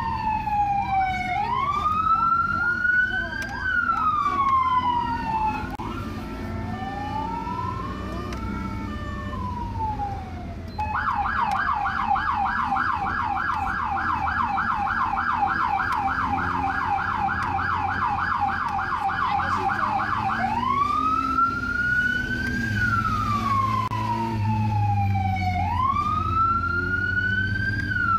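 American police car's electronic siren. It starts on a slow wail rising and falling, switches about eleven seconds in to a fast yelp for about ten seconds, then goes back to the slow wail. A low engine rumble runs underneath.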